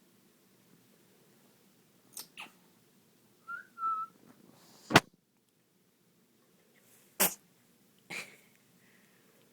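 A young pet sneezing several times in short, sharp bursts. The loudest sneeze comes about halfway through and a strong one follows about two seconds later, with smaller sneezes before and after. A short high whistle-like squeak sounds a little before the loudest sneeze.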